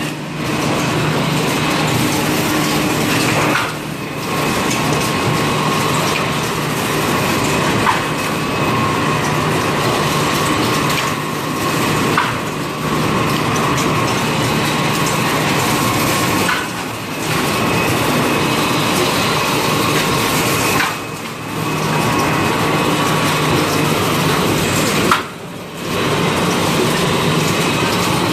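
Toilet-roll and kitchen-towel bundling and packaging line running: a loud, steady mechanical din with a constant hum through it, dipping briefly every few seconds.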